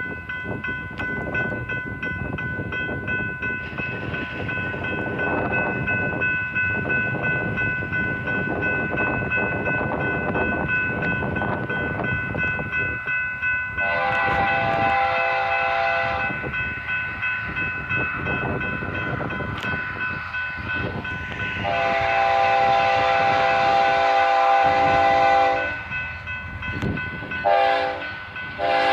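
Horn of a BNSF freight train's diesel locomotive sounding over the low rumble of the approaching engines. From about halfway in the full horn chord comes in louder, in two long blasts, a short one, and another long one beginning at the end: the long-long-short-long pattern for a grade crossing.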